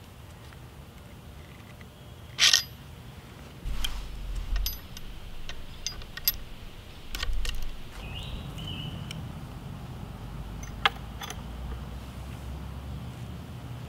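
Metal clinks and clicks of a steel snap hook and chain being handled and clipped onto a hook fixed to a tree trunk. It is a scattering of sharp clicks, the loudest about two and a half seconds in.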